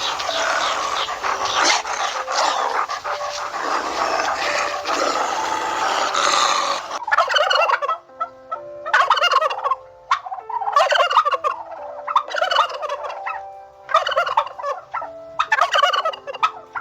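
Animal calls: a dense chorus of many overlapping calls, then from about seven seconds in, loud rattling, warbling calls repeated roughly every second and a half.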